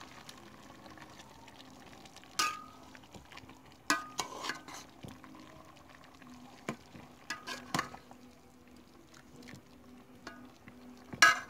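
Metal ladle scraping and clinking against a cooking pot as chunks of pork and liver are stirred. The strokes come in a few separate bursts, and the loudest is near the end.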